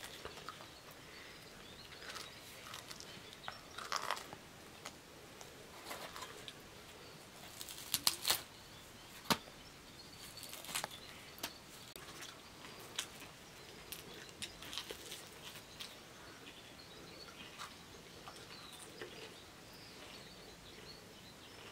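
Quiet background with scattered short clicks and taps, the sharpest a quick cluster about eight seconds in, and a few faint bird chirps.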